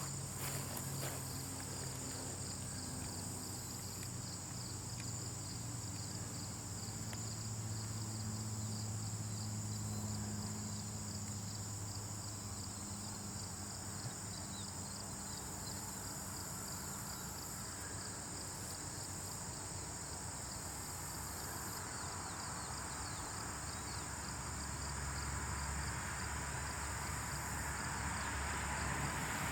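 Insect ambience: a steady high chirring like crickets over a low hum, with a few light clicks at the start. It grows slightly louder and hissier near the end.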